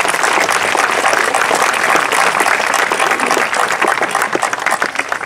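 A large crowd of schoolchildren applauding: dense, steady clapping after a class performance, beginning to thin out at the very end.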